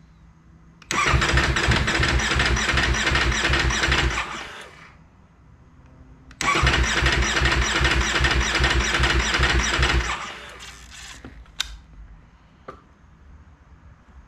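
Ducati Panigale V4 S's V4 engine cranking on its electric starter in two bursts of about three and a half seconds each, the second starting about two seconds after the first stops. It fails to fire either time: the hard cold-start problem of this bike after it has sat for some days.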